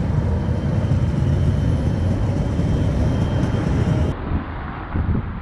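Belgian Coastal Tram running past on its track: a loud low rumble with a faint steady whine above it. The sound breaks off about four seconds in, leaving softer, gusty outdoor noise.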